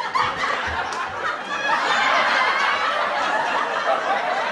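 Laughter, a steady unbroken run of snickering and chuckling.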